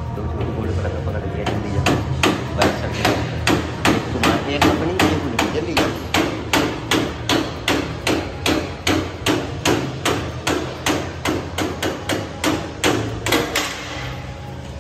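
Claw hammer repeatedly striking the end of a screwdriver held as a punch against the steel arm hub of a tripod turnstile. The blows are even, about three a second, fainter at first and steady from about a second and a half in. They stop about a second before the end.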